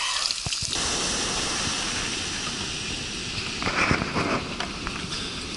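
Steady rush of ocean surf breaking on a beach, with wind, swelling louder about four seconds in. In the first moment, bacon and eggs sizzle and crackle in a tray over a campfire.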